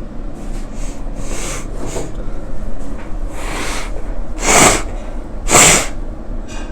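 A man sniffing hard through a snotty nose just after sneezing: a series of short, hissy sniffs, the two loudest about a second apart past the middle.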